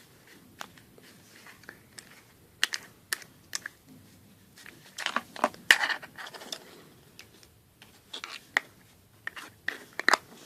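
Homemade slime being squeezed and kneaded by hand, giving scattered sharp clicks and pops, with busier stretches of squelching about halfway through and again near the end.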